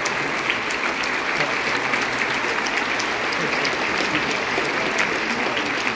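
Large crowd applauding steadily: a dense, unbroken wash of clapping.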